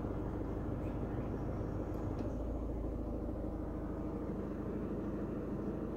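Steady low mechanical hum of a VW Golf 6's running machinery, heard inside the cabin, with a few faint clicks.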